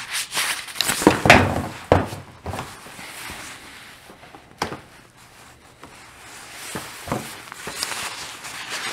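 Plastic spring clamps being handled and fitted onto a glued plastic door armrest to squeeze its split closed: a quick cluster of sharp clicks and knocks in the first couple of seconds, single clicks about halfway and again later, and gloves rubbing on plastic.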